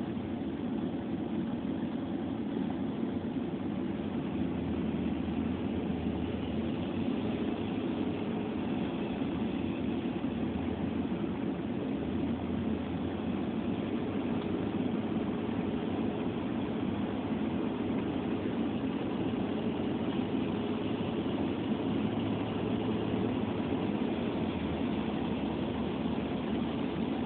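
Steady car engine and road noise heard from inside the cabin while driving.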